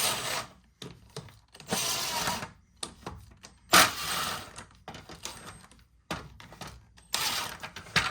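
Lug nuts on a car's front wheel being loosened with a 19 mm socket: four short bursts of rattling tool noise a couple of seconds apart, with small clicks between.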